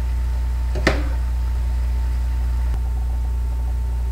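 Steady low hum, with one sharp tap about a second in.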